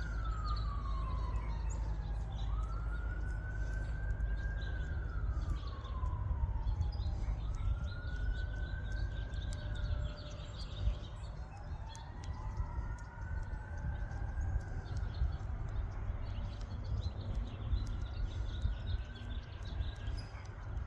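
Emergency vehicle siren wailing, its pitch slowly rising and falling every three to four seconds, at times two wails overlapping, over a steady low rumble.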